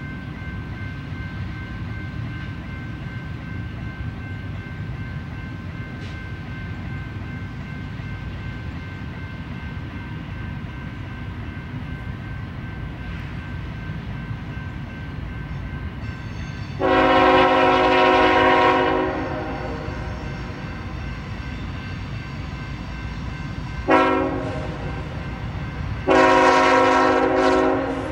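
Air horn of an approaching CSX Tier 4 diesel locomotive: one long multi-tone blast, a short blast, then another long blast, heard over the steady low rumble of the oncoming train.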